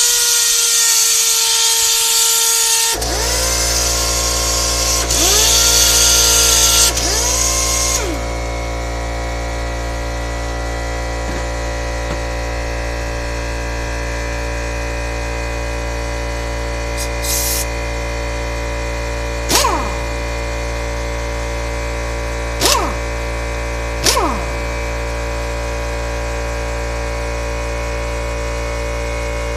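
Loud hiss of compressed air escaping for about eight seconds. About three seconds in, an electric air compressor starts and runs steadily with a low hum through the rest. Later, an air impact wrench is triggered briefly three times, spinning up and down each time.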